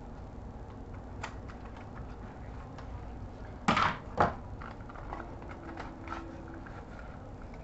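Packaging box being handled during an unboxing: small scattered clicks and taps, with two loud knocks close together a little under 4 s in.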